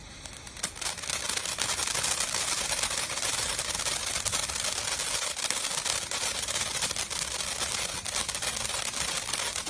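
Ground fountain firework crackling densely as it sprays sparks, with a steady hiss. The crackle builds up about a second in and then holds steady.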